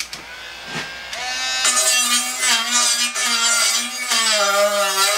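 Small handheld rotary tool spinning up about a second in and grinding excess paint out of the bushing bore of a painted steel lower control arm. A steady high whine that dips slightly in pitch near the end as the bit is pressed into the bore.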